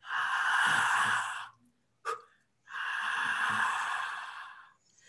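A woman's forceful breath pushed out through a wide-open mouth: two long hissing exhalations of about one and a half and two seconds, with a quick sharp in-breath between them.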